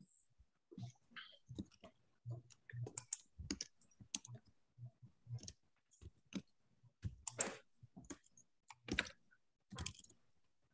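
Faint, irregular clicks and taps, several a second, with soft low thuds among them.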